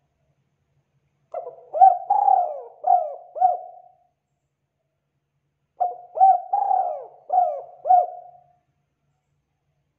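Spotted dove cooing: two phrases of about five coos each, a few seconds apart, each note bending in pitch and the last one drawn out.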